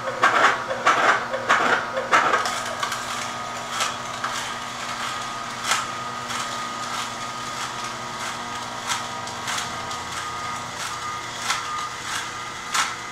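Horizontal masticating juicer running with a steady motor hum while its auger crushes pepper grass stems, giving irregular crackles and snaps. The crackling is densest in the first couple of seconds.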